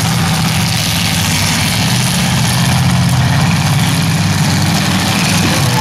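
Demolition derby cars' engines running together in a loud, steady drone.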